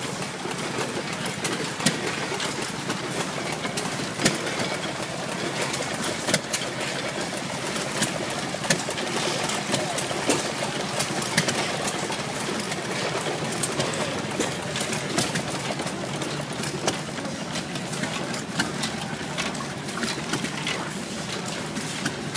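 Antique hit-and-miss gas engine running, with sharp firing beats at uneven intervals of a second or two, as it drives a piston water pump whose outflow splashes steadily into a metal tank.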